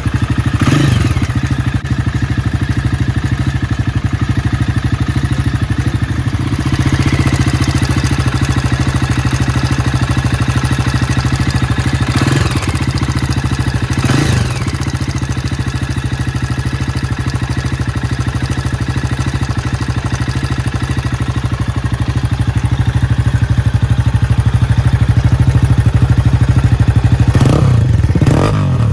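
Jawa 42 single-cylinder engine running with its catalytic converter removed, idling with the throttle blipped a few times. Running with an abnormal engine noise that the owner calls a major engine sound problem on a bike with only 4,900 km on it.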